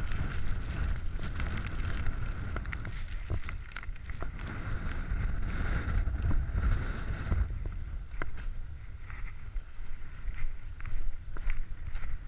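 Storm wind buffeting a GoPro's microphone as a mountain bike rides through snow, a heavy low rumble with scattered clicks and knocks from the bike. A thin steady whistle sits over it and fades about seven seconds in.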